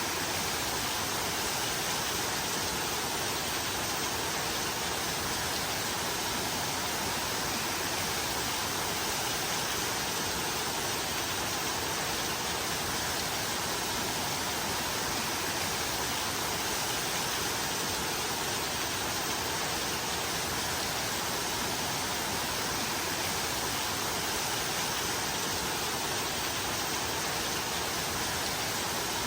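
Steady rain, an even hiss that holds at one level, with no single drops or other sounds standing out.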